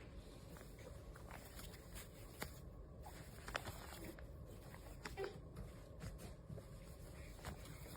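Faint handling noise: a few soft, scattered clicks and taps over a low steady rumble.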